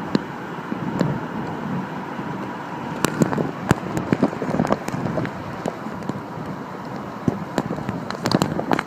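Sea washing on the shore: a steady rushing noise with scattered sharp crackles and clicks, most of them about three seconds in and near the end.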